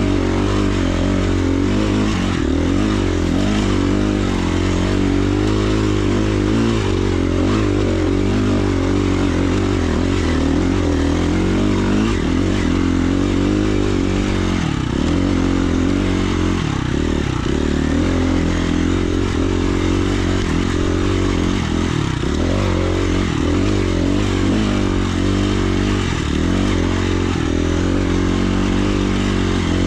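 Dirt bike engine running under way, its pitch rising and falling with the throttle, dipping briefly a few times around the middle.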